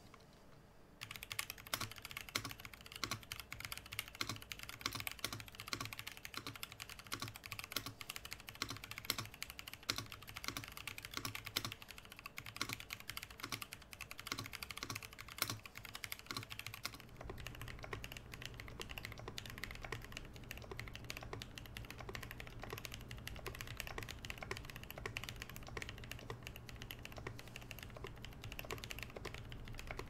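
Fast typing on a Novelkeys NK87 Entry Edition mechanical keyboard with Kailh Pro Purple tactile switches, a rapid run of keystrokes. About 17 seconds in, a second typing run takes over, with a low hum underneath and less high clatter. This is the before-and-after sound test of the board, modded with lubed switches and stabilizers and its standoffs removed, a sound the builder calls soft and poppy, without rattle.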